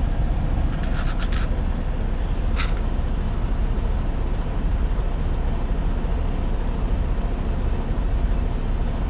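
Steady low rumble of an idling truck heard from inside the cab, with a few short clicks about a second in and another near three seconds.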